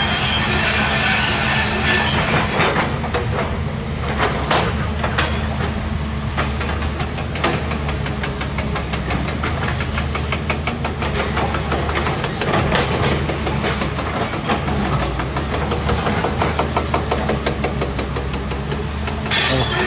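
Heavy crawler excavator's diesel engine running steadily under load, with many short metallic clanks and rattles throughout. A hiss sits over it for the first few seconds.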